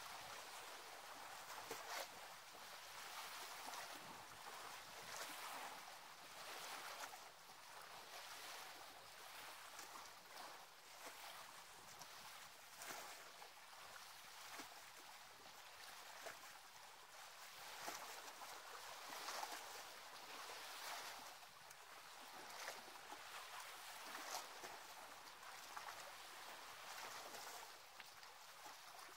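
Faint wash of small sea waves lapping against shore rocks, a soft hiss that swells every second or two.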